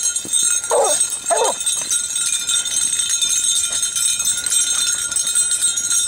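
Beagles working a rabbit scent: two short yips about a second in. After that comes only a steady hiss and light ticking as they push through dry grass.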